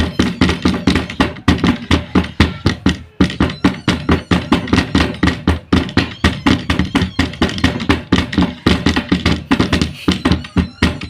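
Children banging on something as a makeshift drum: quick, uneven tapping and thumping strikes, several a second, without a break.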